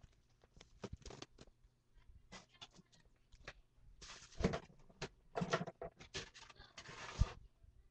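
Irregular clicks, rattles and rustles of an airsoft spring pistol being handled while it is loaded with BBs, ending in a sharp click about seven seconds in.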